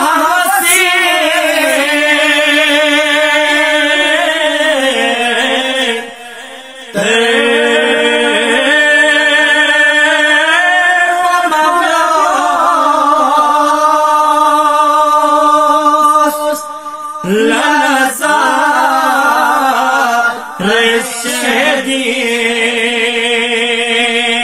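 Men's voices chanting a Balti devotional qasida unaccompanied, in long held notes with a wavering vibrato. The singing breaks off briefly about six seconds in and twice more near the end.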